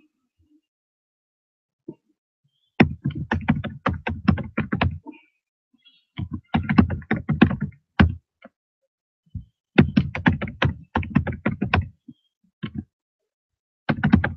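Computer keyboard typing in four quick runs of keystrokes with short pauses between, and a few single clicks in the gaps.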